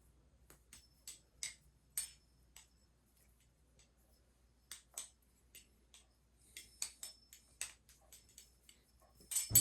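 Balisong butterfly knife being fanned and flipped: its metal handles and pivot give a string of light, sharp metallic clicks and clacks at an uneven pace, pausing for a moment in the middle and bunching together near the end.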